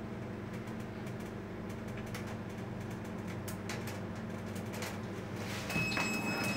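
Lift Mech elevator's drive running with a steady hum and light clicks as the car travels. Near the end it gets louder and a steady high-pitched beep starts, with clicks, as the car stops and the door opens.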